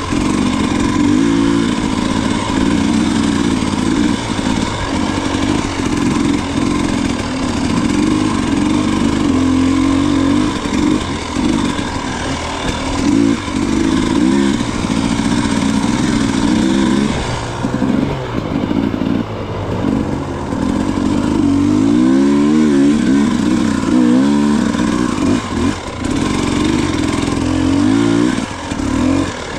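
Off-road motorcycle engine running under throttle while being ridden, the revs rising and falling. About two-thirds of the way through, the revs swing up and down several times in quick succession.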